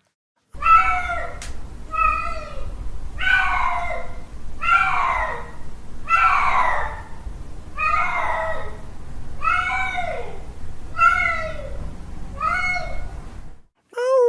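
Male cat caterwauling its mating call: about ten drawn-out yowls in a row, each rising then falling in pitch, about one every second and a half. A low steady hum sits underneath, and the calls cut off suddenly near the end.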